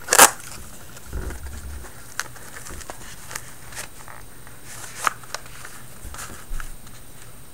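A sharp snap just after the start, then scattered small clicks and a low bump: a LiPo battery and its Deans connector being handled and plugged into an airsoft rifle's wiring.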